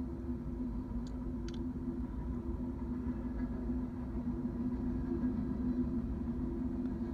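Freight train cars rolling past on the tracks: a steady rumble with a low hum, and two brief high chirps about a second in.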